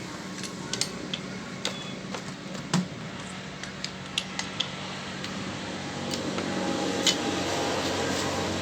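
Rebuilt 800cc Suzuki Mehran engine running steadily, with scattered sharp metallic clinks and ticks over the hum; it gets a little louder about six seconds in.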